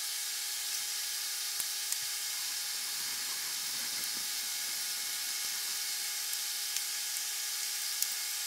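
A steady hiss with faint humming tones underneath, unchanging throughout, with a few light taps of wood being handled on the bench.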